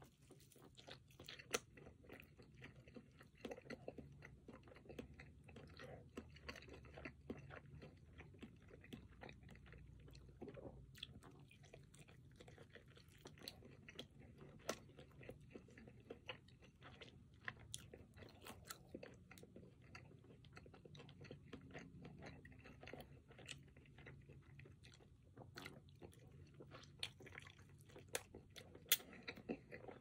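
Close-miked chewing and biting of an oven-roasted, spice-coated chicken drumstick: a soft steady chewing with frequent sharp clicks and crunches, the sharpest near the end.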